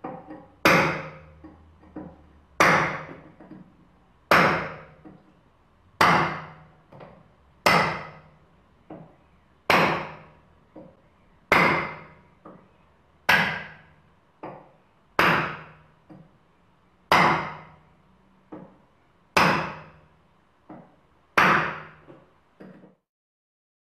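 A series of loud, sharp strikes, about one every two seconds, each ringing briefly as it dies away, with fainter knocks in between.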